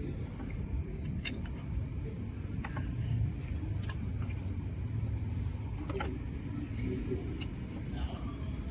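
A cricket trilling steadily at a high pitch over a low, steady rumble, with a few light clicks of small parts being handled.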